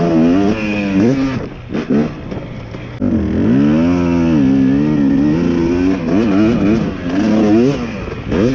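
Dirt bike engine revving up and down as the bike is ridden. The throttle is blipped, then opened to a rise held for a few seconds about three seconds in, then it drops back to shorter revs near the end.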